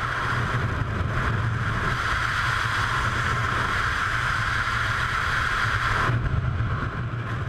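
Wind rushing over a skydiver's helmet-camera microphone in freefall: a steady, loud rushing noise. About six seconds in, its higher part drops away.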